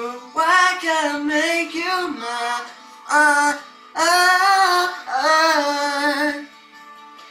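Music with a high voice singing a run of wordless phrases over a soft held backing chord; the singing stops about six and a half seconds in, leaving the backing alone.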